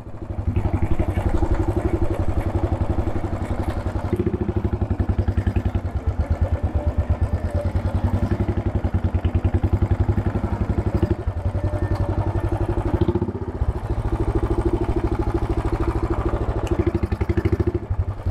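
A motorcycle engine idling, its exhaust beating in a quick, even rhythm.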